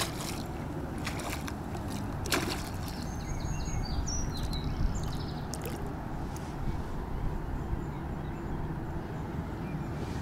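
Hooked bream splashing and thrashing at the water's surface as it is played on a float rod. There are a few sharp splashes in the first two and a half seconds, then gentler sloshing.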